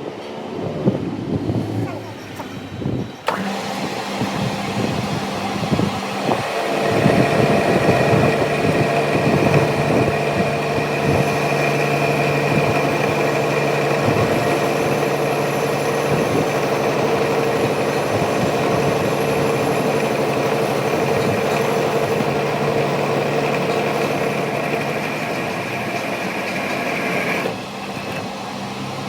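A motor-driven workshop power tool running steadily with a constant whine. It starts about three seconds in, after some irregular knocking and handling noise, and stops shortly before the end.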